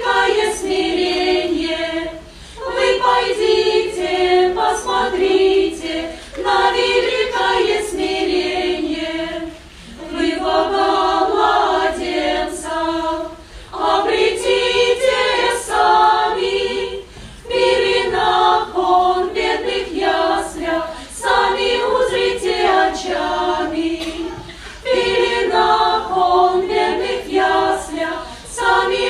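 Choir singing in phrases of a few seconds each, with a short break between phrases.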